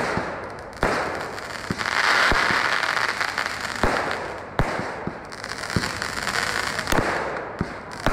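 Aerial fireworks bursting in a rapid string: about ten sharp bangs at uneven spacing over a continuous hiss that swells about two seconds in.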